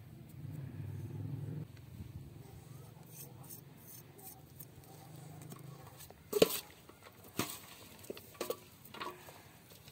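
A metal spoon clinking against a large steel bowl as chopped vegetables are stirred: four sharp clinks in the second half, the first the loudest.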